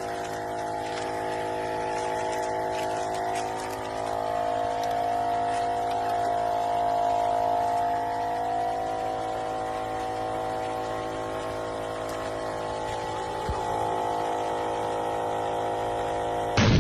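A motor or engine running steadily at one speed, a continuous pitched hum with a slight slow waver.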